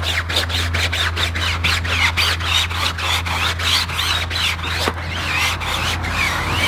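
A brush scrubbing a wet, foamy car tyre and wheel, with quick scraping strokes and squeaking from the bristles on the rubber, over a steady low hum.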